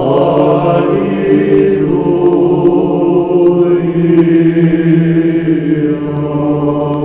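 Orthodox church chant sung by a choir of voices, holding long, slowly moving notes as title music.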